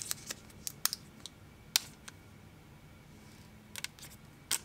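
Plastic wrap being peeled off a small cardboard box by hand: scattered crackles and clicks, several in the first second and a few more near the end.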